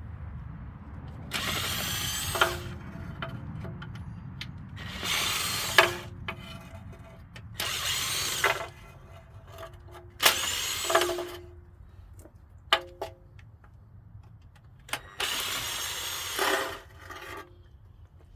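A power tool running in five short bursts of about a second each, backing out the oil pan bolts, with a few light metal clicks between bursts.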